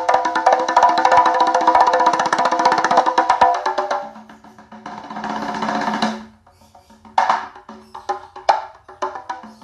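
Percussive music with fast wood-block-like strikes played through a 6-inch ACR 660 speaker that has a nonpolar electrolytic capacitor in series, which leans the sound toward mid-high. The playing is dense for about four seconds, drops to a softer passage, then comes back as sparser strikes near the end.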